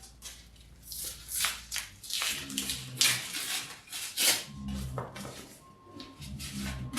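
A paper envelope being torn open and handled: a series of short rustles and tearing strokes of paper.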